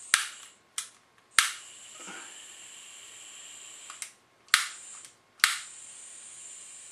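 Igniter of a Bernzomatic butane soldering iron clicking about six times, each a sharp snap, over a steady high hiss of escaping butane. The iron is slow to light and takes several tries.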